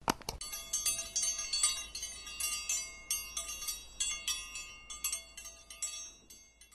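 Subscribe-button notification sound effect: a quick click or two, then a bright jangle of many small bell chimes struck in quick irregular succession, like a wind chime, fading out near the end.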